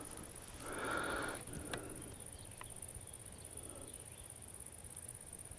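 Insects in a summer meadow chirring steadily as a continuous high-pitched hiss, with a soft rush of noise about a second in and a couple of faint ticks.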